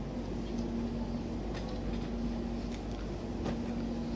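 Classroom room tone: a steady low hum with a few faint clicks.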